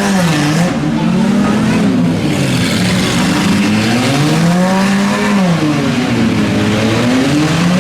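Demolition derby car engines revving loudly, the pitch swelling up and falling back again and again as the cars accelerate and back off.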